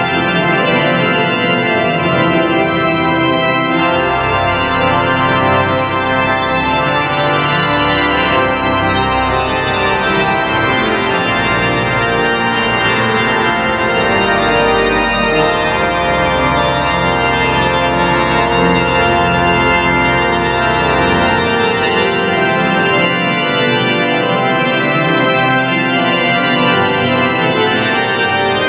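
Organ playing a piece in several voices, sustained chords and moving lines, with deep pedal bass notes under them that drop out about three quarters of the way through.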